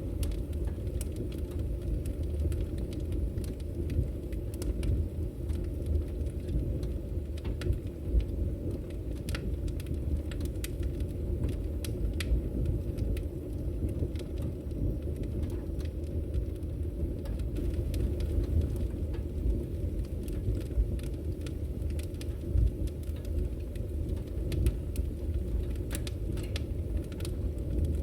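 Fire burning in a chimney fireplace: a steady low rumble with irregular sharp crackles and pops.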